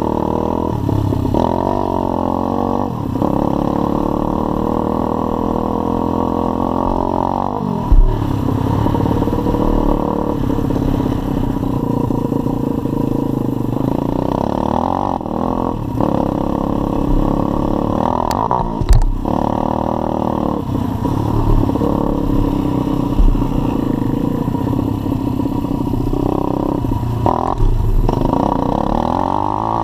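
Pit bike's single-cylinder four-stroke engine ridden hard, its pitch rising and falling again and again as the rider opens and shuts the throttle and changes gear; the engine is still being run in. Sharp knocks about 8 and 19 seconds in.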